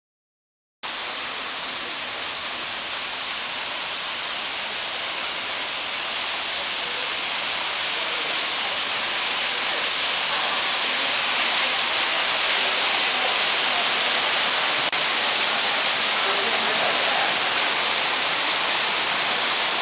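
Steady rushing of water, a bright even hiss that starts abruptly about a second in and grows gradually louder.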